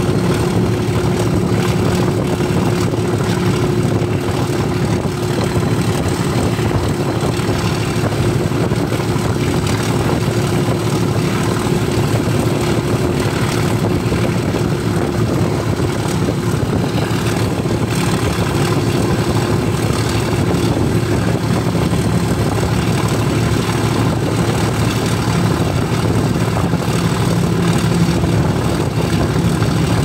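English Electric 12CSVT V12 diesel engine of Class 37 locomotive 37403 running steadily under power while hauling the train, heard from the open window of the coach behind, with a rush of wind and wheel-on-rail noise underneath.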